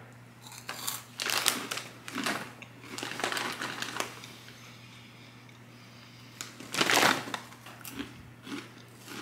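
A snack bag rustling and crinkling in several short bursts as a hand reaches in and handles it, the loudest near the end, with some crunching of the puffed corn and rice snacks.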